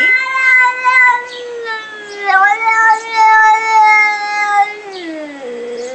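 A cat giving one long, drawn-out meow of about five and a half seconds. Its pitch dips briefly a little past two seconds in and slides down at the end.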